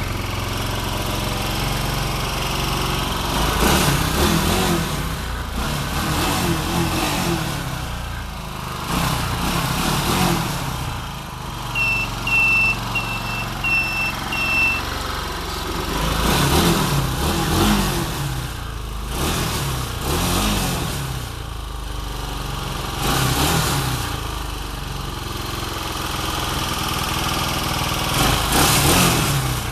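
Quad bike (ATV) engine running and revving up and down repeatedly, each rev a rise and fall in pitch. A run of five short high beeps comes about halfway through.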